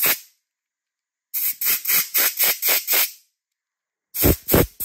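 Compressed-air blow gun firing rapid short blasts, about four a second, through a plastic carburettor jet piece to clear its passages. There are two runs of blasts with a pause between them.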